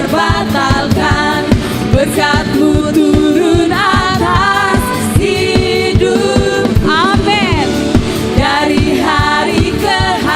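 Live church worship band playing a praise song with several voices singing over it and a steady drum beat.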